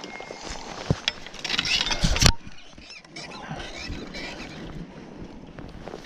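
A few sharp knocks, the loudest just after two seconds in, with rustling of dry grass and netting between them: a landed steelhead being clubbed with a metal fish club in the landing net.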